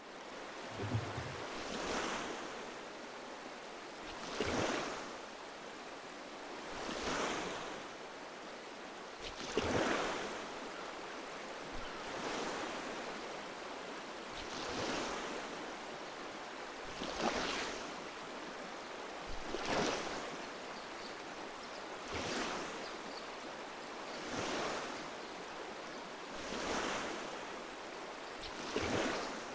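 Oars of a rowing boat dipping and pulling through river water: a swelling splash-and-swish about every two and a half seconds, over a steady wash of moving water.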